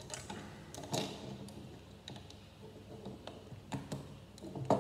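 Plastic Lego bricks being handled and pressed together: scattered small clicks and taps, the loudest near the end.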